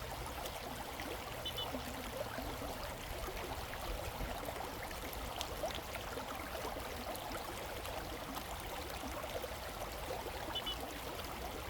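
Creek water flowing, a steady rush of running water.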